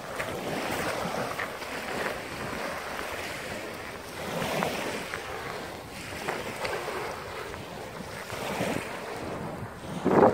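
Small sea waves breaking and washing up a shingle beach, swelling and easing every few seconds, with wind buffeting the microphone.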